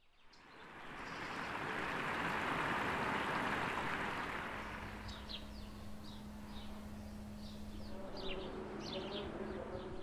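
Outdoor garden ambience fading in from silence: a broad rushing noise swells over the first few seconds, then eases. From about halfway, small birds chirp in short, high, repeated notes over a steady low hum.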